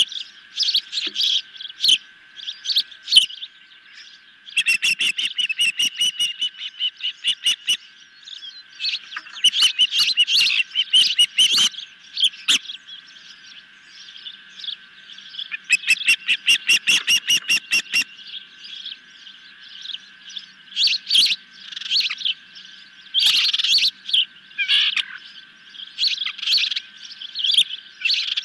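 Juvenile ospreys calling from the nest: sharp, high chirps that come in quick runs, some lasting two or three seconds, repeating on and off throughout.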